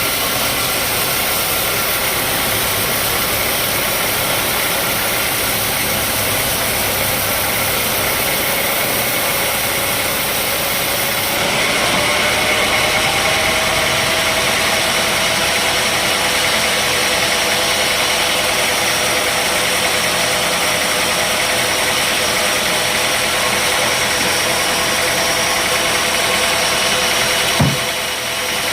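Sawmill machinery running steadily and loudly, with a faint tone that slowly rises from about halfway through. A single short knock near the end.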